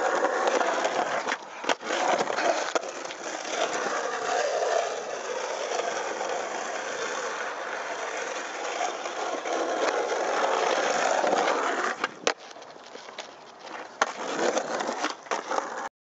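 Skateboard wheels rolling over pavement, a steady gritty rumble, with a few sharp clacks of the board.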